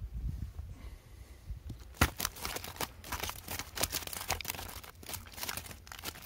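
A woven palm-leaf basket of fish crackles and rustles dryly as it is handled close to the microphone. The crackling starts about two seconds in and stops sharply near the end, over a low steady rumble.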